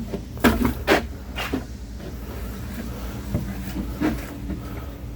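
Wooden knocks and thuds as bundles of oak firewood are set down, two sharp ones close together about a second in and a lighter one near four seconds, over a steady low hum.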